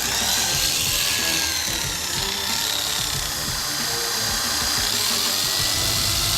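Oster A5 Turbo two-speed hair clipper's brushed motor running steadily, super loud. The noise comes from play in the worn blade-drive link and lever.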